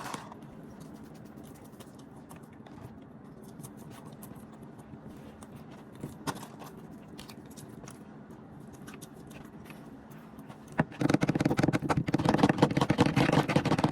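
Close-up eating noises: quiet scattered mouth clicks, then loud, dense crunching and crackling from about eleven seconds in.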